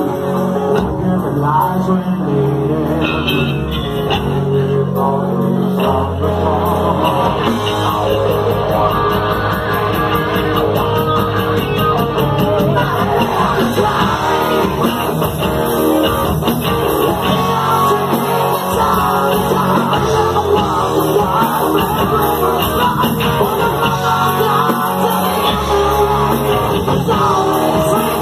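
Live rock band playing: electric guitars, bass guitar and drum kit, with a singer.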